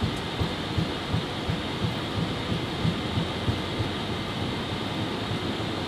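Cockpit of a twin-engine Boeing jet airliner accelerating on its takeoff roll at takeoff thrust: a steady rush of engine and air noise with an uneven run of low thumps and rumble from the wheels rolling over the runway.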